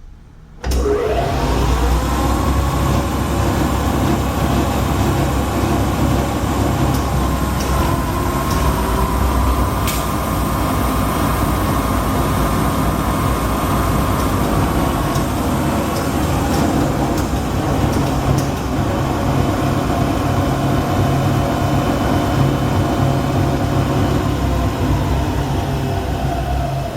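Hardinge HC variable-speed lathe's spindle and 1.5 hp drive switched into the high speed range: it starts suddenly about a second in and rises in pitch as it comes up to speed, then runs steadily with a whine, dipping slightly in pitch near the end.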